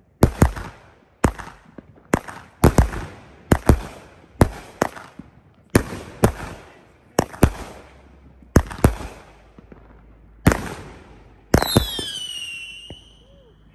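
A 16-shot consumer firework cake firing: a string of sharp bangs, one to two a second and often in close pairs, from shots lifting and bursting, salutes among them. Near the end a few high whistles fall in pitch over the last burst.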